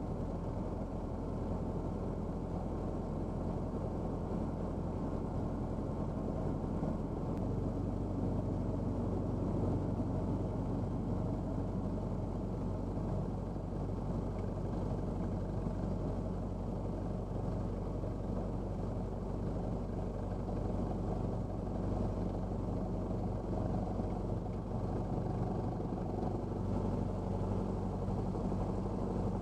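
1978 Cessna 172's four-cylinder Lycoming piston engine and propeller running at low power while taxiing, heard from inside the cabin as a steady drone. The engine note steps up slightly about seven seconds in.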